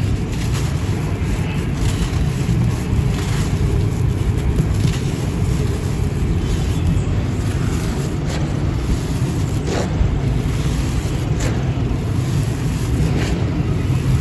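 Dry, gritty sand-cement or ash chunks crumbling and breaking, with short crisp cracks about every second or two, over a steady low rumble.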